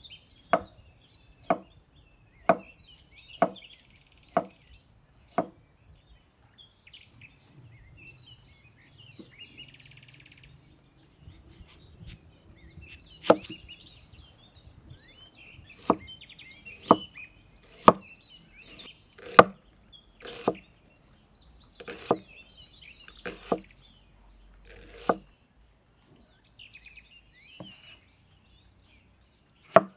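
Cleaver chopping on a thick wooden chopping board, each stroke a sharp knock on the wood. First it slices a carrot into rounds, about one stroke a second. After a pause of several seconds it slices an onion with a second run of about ten knocks.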